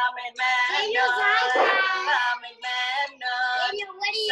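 Children and a woman singing a song together, in sustained sung phrases with short breaks between them, heard through a video call.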